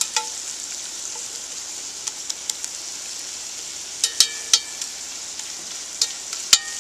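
Ground beef sizzling steadily as it browns in a pan, with the stirring utensil clinking and scraping against the pan in small clusters every second or two.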